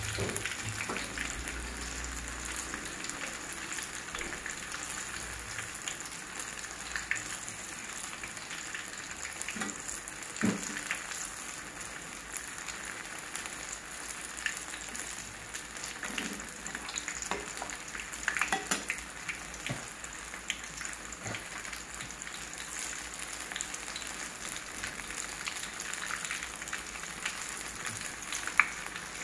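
Battered banana fritters deep-frying in hot oil in a wok: a steady sizzle and crackle, with a few louder pops.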